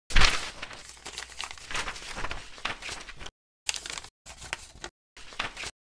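Scratchy, crinkling intro sound effect, loudest in a sharp burst at the very start, then a run of rustling scrapes broken several times by abrupt dead-silent gaps in the second half.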